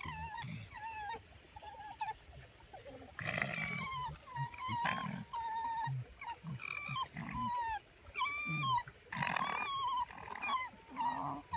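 Red fox making a string of short, high-pitched whining calls, about two a second, with a few louder, harsher cries among them.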